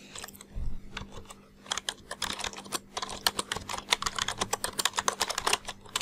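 Typing on a computer keyboard: a quick run of keystroke clicks that starts about a second and a half in and goes on for several seconds.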